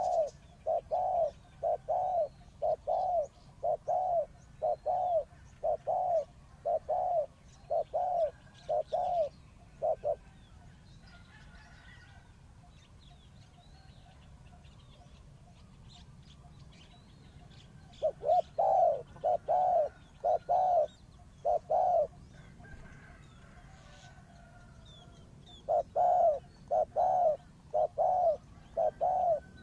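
A bird calls in long runs of short, evenly spaced hooting notes, about two a second. It calls for the first ten seconds, stops, calls again briefly after about 18 seconds, and starts up once more near the end. Faint higher chirps from other birds come through in the pauses.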